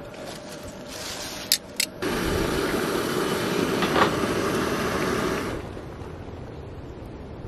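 Propane camp stove burner hissing steadily under a pot of boiling water, then stopping abruptly; two sharp clicks come shortly before the hiss starts.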